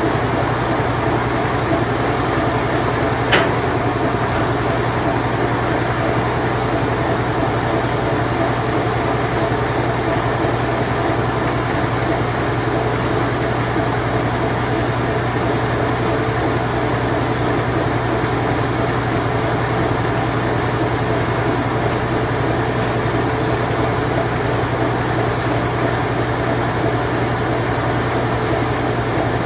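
Late-1980s Whirlpool Imperial Clean Touch washing machine running steadily in its spin cycle: an even hum with a low drone. There is a single brief click about three seconds in.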